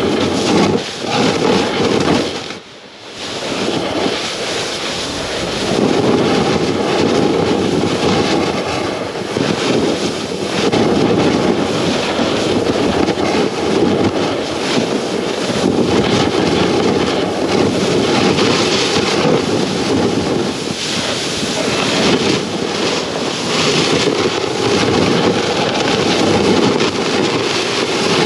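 Snowboard sliding and scraping over snow, heard close up from a camera mounted on the board's nose, mixed with wind on the microphone. The rushing sound briefly drops away about three seconds in, then carries on unevenly.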